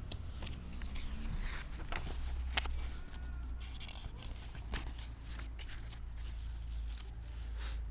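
Quiet room tone: a steady low hum with a few sharp clicks and faint rustling.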